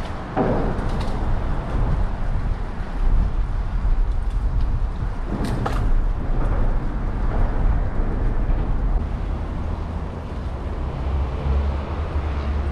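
Steady low rumble of wind and road noise on a bicycle-mounted action camera while riding, with a couple of sharp clicks or knocks about half a second in and again around five and a half seconds in.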